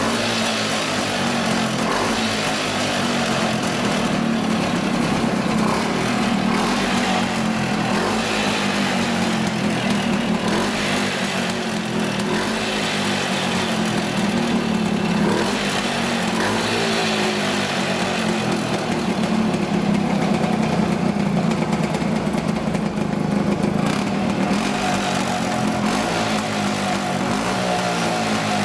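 Puch SGS 250's split-single two-stroke engine, two pistons sharing one combustion chamber, running steadily at low revs with a slightly wavering pitch.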